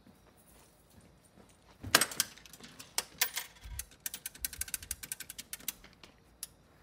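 A payphone being used: a sharp clack about two seconds in, then a quick run of light metallic clicks and clinks as coins go in and the number is dialed.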